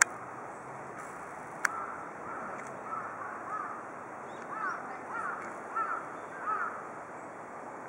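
Garden pond fountain splashing steadily, a constant water hiss. From about three seconds in, a bird calls a run of short repeated notes. Two sharp clicks come in the first two seconds.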